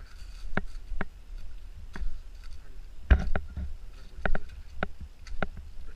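Footsteps on a dirt trail going downhill: irregular, about one or two steps a second, each a short crunch, over a steady low rumble on the microphone.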